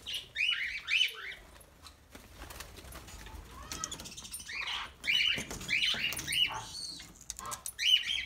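Cockatiels and budgerigars in an aviary calling in bursts of short, rising-and-falling chirps. One spell comes at the start and a longer one from about five to seven seconds in.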